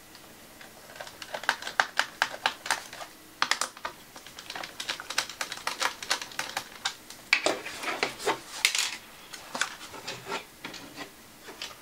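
Small precision screwdriver backing screws out of a plastic laptop's underside: an irregular run of quick, light clicks and ticks.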